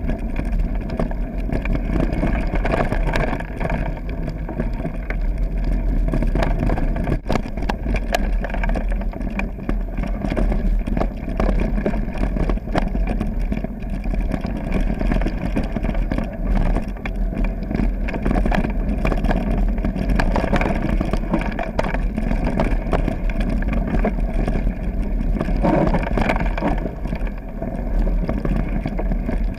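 Mountain bike riding down a gravel trail, heard through an action camera: steady wind rumble on the microphone over the crunch of tyres on loose stones, with frequent rattling clicks from the bike.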